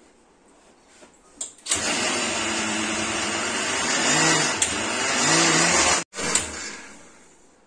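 Electric mixer grinder (mixie) motor grinding soaked chana dal in its steel jar. It starts about two seconds in after a couple of clicks and runs loudly for about four seconds. It stops for an instant, gives one short burst more, then winds down near the end.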